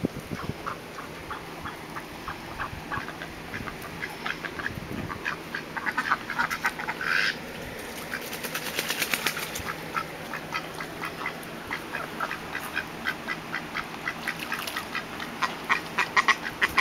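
Ducks quacking: many short quacks in quick runs, with one longer call about seven seconds in.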